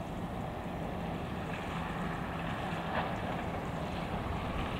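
Wind rumbling on the microphone at the open waterside, with a faint steady low hum underneath and a small tick about three seconds in.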